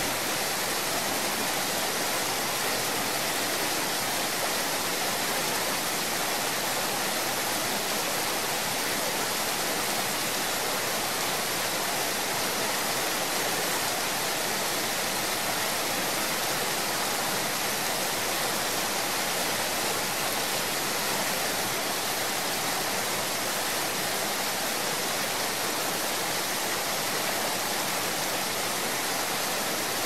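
Niagara Falls: a steady, unbroken rush of falling water, even throughout with no changes.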